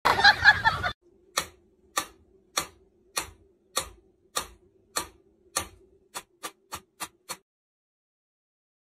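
Mechanical pendulum metronome ticking a little under twice a second. Near the end it ticks faster for a few beats, then stops. A faint steady hum runs under the ticks, and a loud, rough burst of noise fills the first second.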